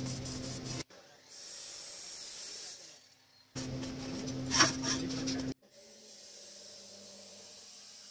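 Electric arc welding on a bent steel tube ring: a crackling, hissing arc over a steady low hum from the welder. It comes in two loud stretches that cut off abruptly, one ending just under a second in and one in the middle, with quieter steady hiss between and after.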